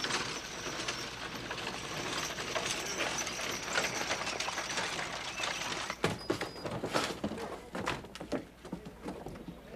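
Horse-drawn stagecoach on a dirt road: hooves clip-clopping with the wheels and harness rattling in a dense, steady clatter. About six seconds in, this gives way to sparser scattered knocks.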